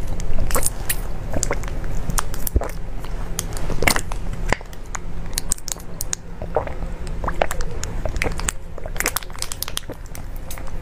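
Close-mic sucking and slurping of liquid from a soft plastic drink tube. The thin plastic crinkles and crackles as it is squeezed flat, with irregular wet mouth clicks throughout.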